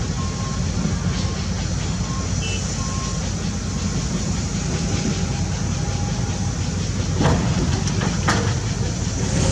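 Hydraulic excavator's diesel engine running steadily under load, with two thuds about seven and eight seconds in as the bucket dumps soil and rocks into a dump truck's steel bed.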